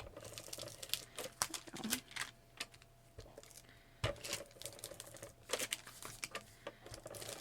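ATG tape gun clicking irregularly as double-sided adhesive tape is run along paper, with one louder knock about four seconds in.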